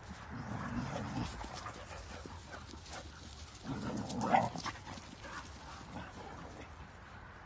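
Several dogs playing and chasing each other on grass, with short dog vocal sounds, the loudest coming about four seconds in.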